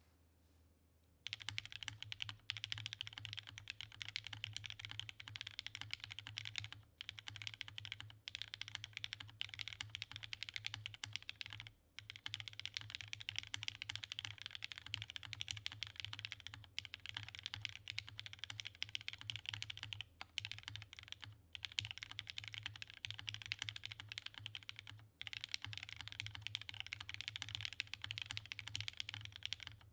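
Fast continuous typing on the letter keys of a DNDD custom mechanical keyboard, a top-mount polycarbonate-plate build with Krytox-lubed Cherry MX Hyperglide Red linear switches and GMK keycaps. The typing starts about a second in and breaks off for short pauses every few seconds.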